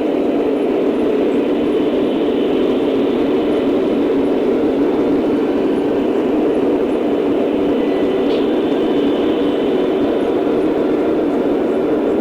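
Lionel O-scale model train running on its track: a steady rumble of the electric motors and wheels rolling on the rails, with a brief higher squeak about eight seconds in.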